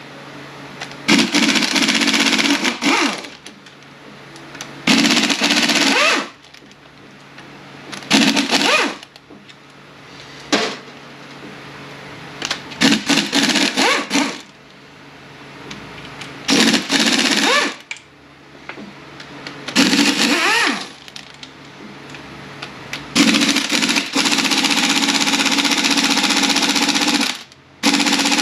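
Impact wrench driving a T40 Torx bit, run in short rattling bursts of one to two seconds about eight times and once for about four seconds near the end, breaking loose and spinning out the case bolts of an FW6AEL automatic transmission.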